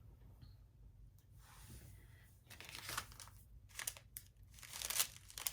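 Small plastic packaging bag crinkling as it is handled, in faint irregular rustles that are loudest about three and five seconds in.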